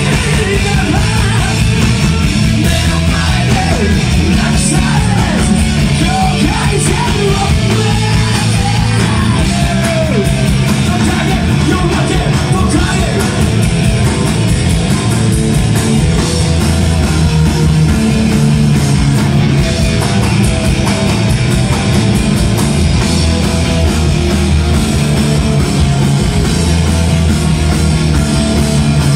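A rock band playing live and loud: electric guitar, bass and drums, with a singer's vocals over the first part.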